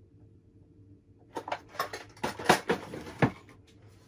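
Small tools and hard parts handled on a workbench, making a quick run of about ten sharp clicks and knocks over two seconds, the loudest two near the end.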